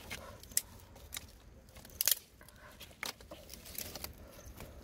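Dry sticks and twigs clicking and cracking as they are handled and laid into a small fire between stones, a scatter of light snaps with a few sharper ones.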